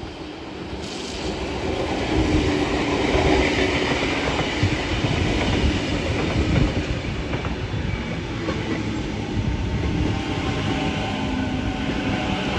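Electric double-deck suburban train approaching and passing close by; its rumble builds over the first two seconds, then stays loud and steady as the carriages go past, with wheels clattering over the rail joints.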